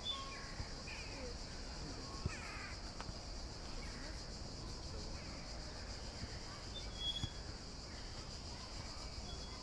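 Summer outdoor ambience: a steady high drone of insects with scattered bird calls, most of them in the first few seconds.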